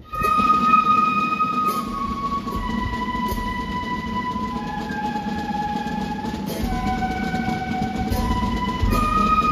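Marching flute band playing a slow melody in long held notes, with bass drum and cymbal strokes now and then.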